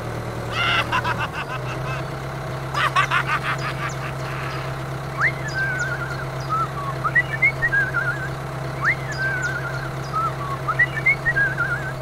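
Tractor engine running with a steady low hum, with two short rattling bursts in the first few seconds. Birds chirp and trill repeatedly from about five seconds in.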